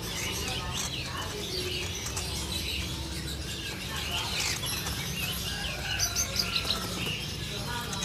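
Caged green leafbirds (cucak ijo) chirping and whistling, many short calls overlapping, with the lively song set off by a female put in as a lure. A steady low hum runs underneath.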